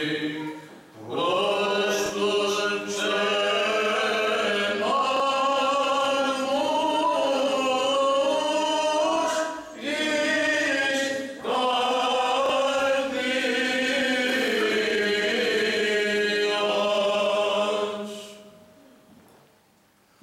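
Male voices singing Byzantine chant: a slow, ornamented melody of long held notes over a steady lower drone, with brief pauses for breath. The singing dies away near the end.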